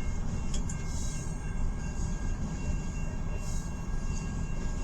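Heavily loaded freight cars of a long mixed freight train rolling slowly past: a steady low rumble of steel wheels on rail, with a few short clicks about half a second in.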